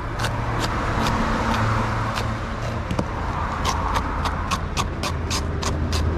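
Knife chopping vegetables on a cutting board: a steady run of sharp strikes, about three a second, with a brief pause about halfway through. A steady low engine-like rumble runs underneath.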